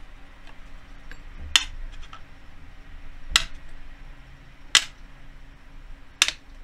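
Four glass ramekins of cake batter set down one at a time on the bottom of an enamel pot, each a sharp glassy clink, about a second and a half apart.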